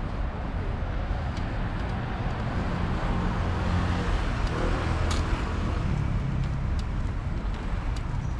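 City road traffic: a steady rumble of cars driving past, swelling about halfway through as a vehicle goes by, with a few light clicks.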